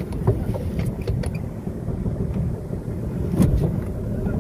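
A small open boat's motor runs steadily under wind and water noise, with a few sharp knocks; the loudest comes about three and a half seconds in.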